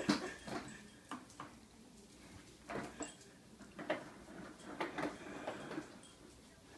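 Plastic baby walker rolling and bumping across a tile floor: scattered clicks, knocks and rattles from its wheels, frame and toy tray as the baby pushes it along.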